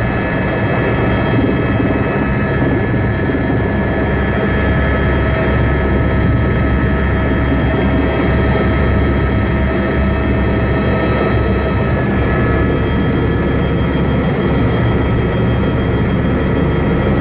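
Helicopter running steadily in flight: a constant low drone with several steady high whines over it.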